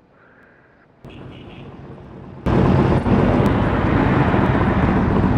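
Street traffic noise that cuts in suddenly and loud about two and a half seconds in, a steady rushing rumble as a motorcycle approaches along the street.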